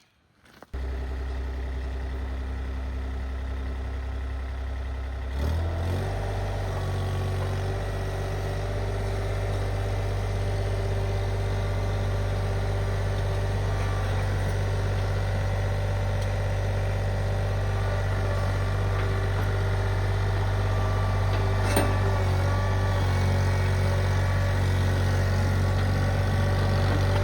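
Iron Rhino IR1200 mini skid steer's engine running steadily. About five seconds in it steps up to a higher throttle and holds there.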